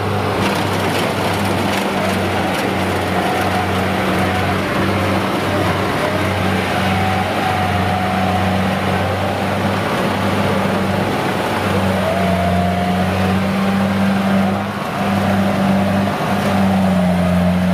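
Kubota DC-70G combine harvester running steadily as it crawls on its tracks through soft, sticky paddy mud: a continuous engine hum with a wavering higher whine above it.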